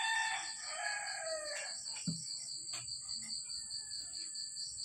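A rooster crowing, its long call falling in pitch and ending about a second and a half in, over a steady high chorus of insects such as crickets. There is a single soft knock about two seconds in.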